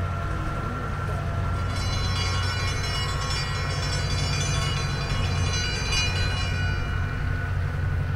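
1910 McKeen rail motor car running past on the track: a steady low drone, with a cluster of high-pitched steady tones sounding over it from about two seconds in until about seven seconds.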